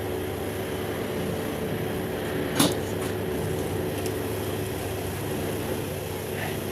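Steady mechanical hum with a faint steady tone, and one sharp knock about two and a half seconds in.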